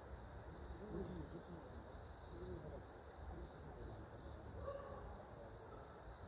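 Faint, steady, high-pitched insect chirring.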